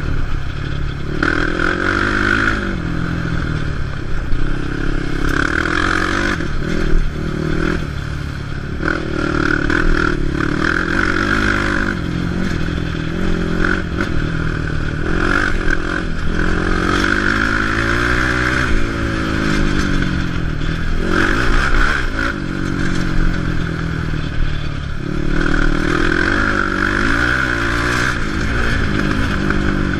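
Quad ATV engine being ridden, its revs rising and falling every few seconds as the throttle is opened and eased off. Occasional knocks and clatter sound over the engine.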